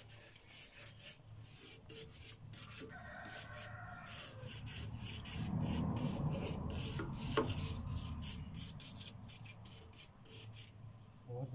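Hand sanding of a rusty metal flower stand: quick, irregular scratchy strokes of abrasive on iron. A single sharp knock comes a little past halfway.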